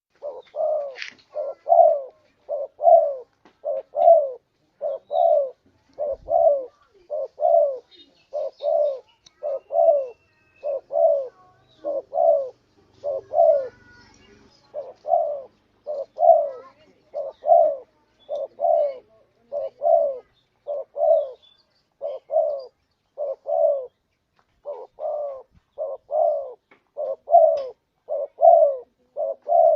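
Spotted dove cooing over and over, a steady run of low, soft coo notes of about one and a half a second, broken by brief pauses.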